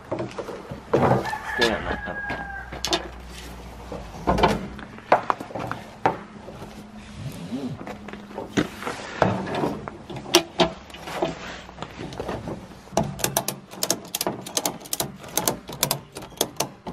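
A rooster crows about a second or two in. Later a ratchet strap is cranked tight around a plastic drum, its ratchet clicking in a quick even run of about three or four clicks a second near the end, with knocks from handling the drum before that.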